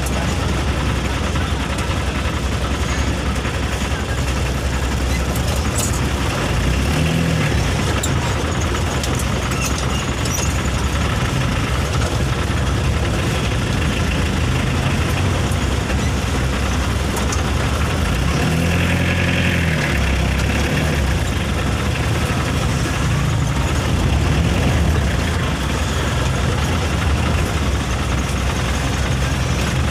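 Heavy truck engine running steadily, with a brief rise and fall in pitch like a rev about nineteen seconds in.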